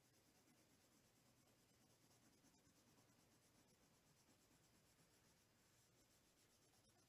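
Very faint scratching of a coloured pencil shading on paper.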